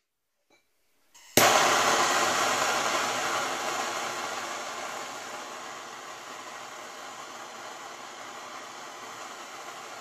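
MAPP gas brazing torch flame hissing. It comes on suddenly about a second in, starts at its loudest, eases off over a few seconds and then holds steady, playing on a copper tube joint.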